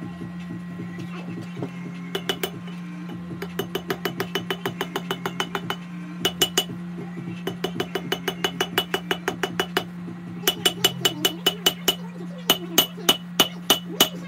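Hand hammer forging red-hot Damascus steel on an anvil: runs of quick ringing strikes, several a second, with short pauses between runs and the loudest blows near the end. A gas forge runs with a steady hum underneath.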